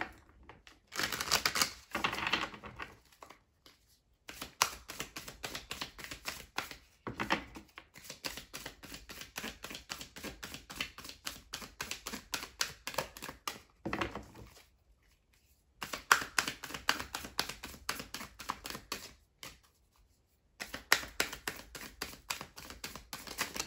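Tarot deck being shuffled by hand, the cards riffling and slapping together in rapid clicking runs, broken by a few short pauses.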